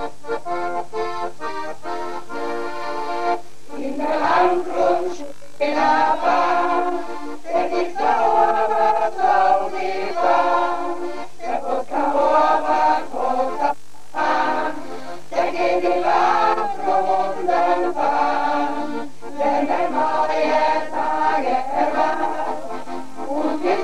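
Mixed choir of older amateur singers singing in harmony, in sung phrases broken by short pauses for breath. A steady low hum runs underneath.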